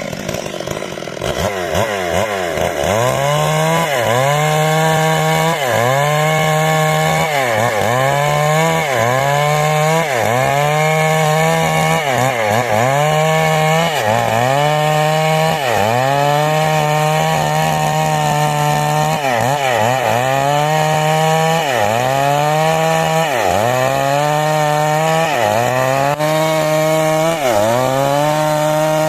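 Two-stroke chainsaw (a '382' saw) at full throttle cutting wood: the engine note drops as the bar bites in and picks back up, over and over, about every one and a half seconds.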